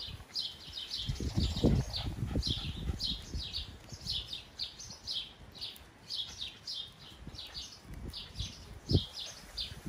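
Small birds chirping in quick runs of short, high chirps, several a second, almost without pause. Low rustling and bumps sound underneath, with one sharper bump near the end.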